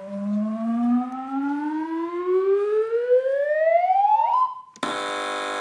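A single electronic tone rises steadily in pitch for about four and a half seconds, like a siren winding up. It stops, and a game-show buzzer then sounds a flat, steady buzz for about a second as a team buzzes in.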